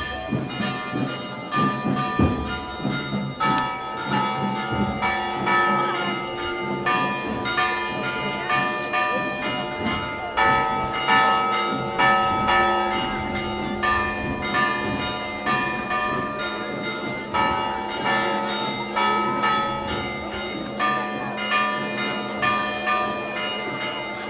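Church bells ringing in quick succession, several strikes a second, each tone ringing on under the next. A few low thumps in the first couple of seconds.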